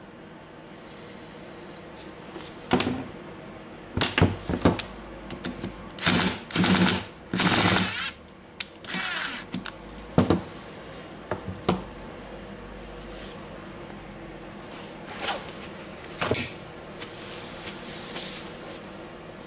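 Irregular clicks, knocks and rustles as the plastic gear housing and wiring harness of a disassembled DeWalt DCH273 rotary hammer are handled and moved about on a wooden table, busiest in the first half.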